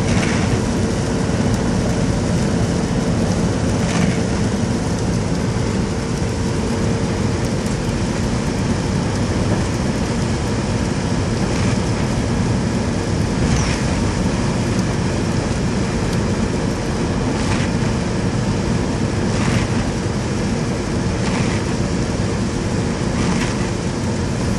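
Car driving, heard from inside the cabin: a steady engine and tyre rumble with a constant hum, and a few faint short clicks now and then.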